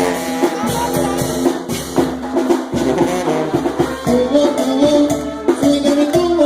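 Mexican banda dance music playing loud: brass over drums with a steady beat and shaken percussion.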